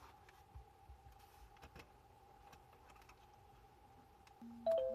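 Faint, scattered light clicks and taps from handling small plastic interior trim parts, over a faint steady hum. Near the end a mobile phone starts ringing with an electronic chime.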